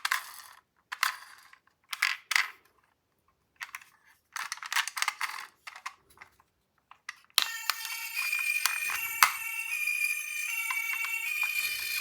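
Small plastic toy cars clattering in short bursts as they are handled. About seven seconds in, a battery toy ambulance's electronic siren starts: a continuous beeping tune of stepped tones, with a few clicks over it.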